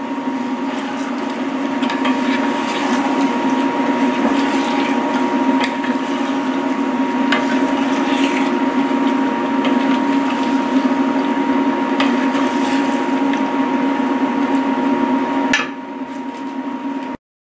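Vegetables and tofu being tossed in a bubbling coconut-milk curry with two wooden spatulas: wet stirring sounds with light clicks of wood against the pan, over a steady hum and a thin high tone. The sound drops a little about 15 seconds in and cuts out abruptly just before the end.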